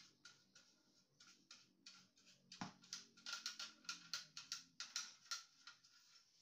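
Faint, irregular clicks and ticks of small plastic and metal parts being handled during printer disassembly, coming thicker and faster from about halfway through.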